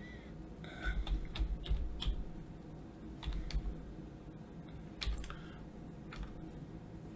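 Typing on a computer keyboard: irregular short runs of keystrokes with pauses between them.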